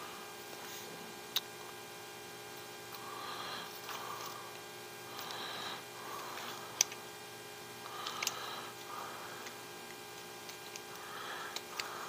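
Small plastic and metal RC axle parts handled and pushed together, giving a few light clicks and taps, the sharpest about seven seconds in, over a steady electrical hum.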